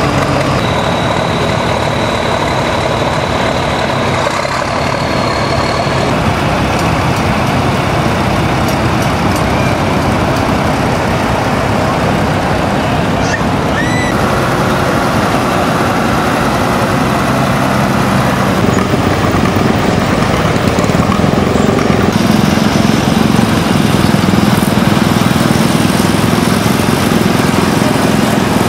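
Antique farm tractors running as they drive past one after another, starting with a 1957 John Deere 620's two-cylinder engine. The engine sound changes abruptly several times as one machine gives way to the next, ending with a small John Deere garden tractor.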